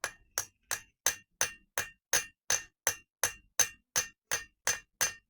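Steady hammer blows on a mild steel disc, texturing it with ridges: about fifteen even strikes at roughly three a second, each with a short metallic ring.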